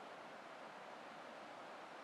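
Faint, steady outdoor ambient hiss with no distinct events.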